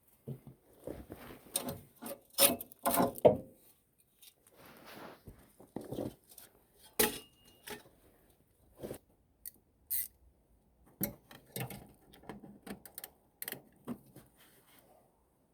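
Hand tools and metal parts being handled: irregular clinks, knocks and short scrapes, with a busier, louder cluster about three seconds in.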